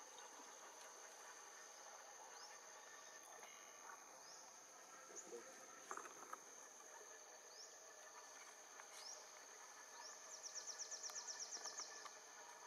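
Faint forest ambience: a steady high-pitched insect drone, with a few short rising chirps scattered through it. Near the end comes a rapid pulsing trill of about eight pulses a second.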